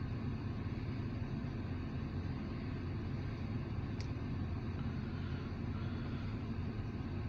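Steady low rumble of an idling vehicle heard inside its closed cabin, with one faint click about four seconds in.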